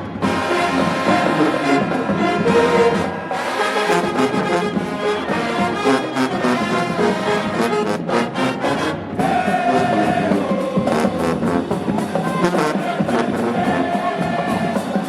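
HBCU band playing a brass-heavy tune, trombones and trumpets to the fore over drums.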